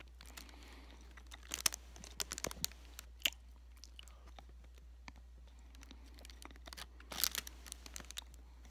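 Close mouth sounds of eating a big hard candy cane: sharp wet clicks, slurps and crunches in short irregular clusters, the loudest about a second and a half, two and a half, three and seven seconds in. A steady low electrical hum lies underneath.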